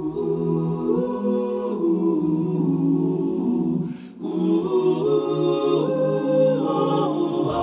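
Choir singing a cappella, several voices holding sustained chords that change every second or so, with a short dip in level about four seconds in.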